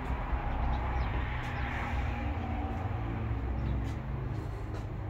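Outdoor background sound: a steady low rumble with a few faint, short chirps.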